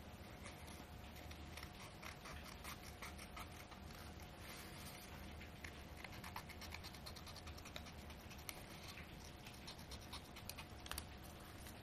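Small scissors cutting through folded drawing paper: a run of faint, crisp snips and paper crackles, a few sharper ones near the end.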